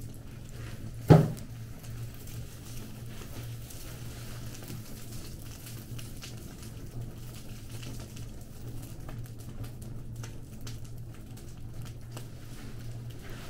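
Fire crackling, with one loud pop about a second in and a denser run of small crackles near the end, over a steady low hum.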